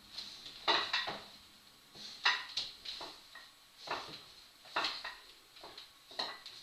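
Wooden rungs of a rope ladder knocking and clattering against the wall and each other as they are gripped and pulled on, a dozen or so irregular sharp knocks.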